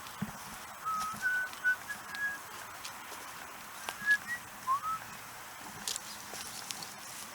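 A person whistling two short runs of notes about three seconds apart, several of them sliding upward, with faint scattered clicks and rustles underneath.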